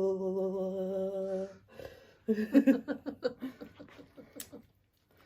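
A person's voice holds one long, steady hummed note, then, after a short pause, breaks into a run of laughter.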